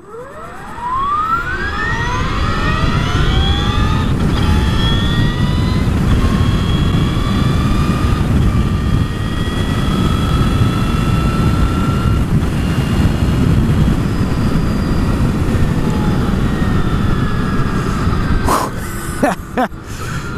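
Brammo Empulse R electric motorcycle accelerating hard from a standstill: the electric motor and drivetrain whine rises steeply in pitch, drops back a few times as the rider shifts up through its gearbox, then holds steady at speed under loud wind rush on the helmet microphone. A few short knocks come near the end.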